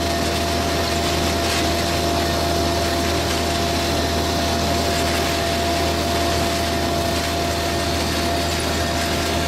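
Farm machinery engine running steadily: an even low drone with a constant whine on top.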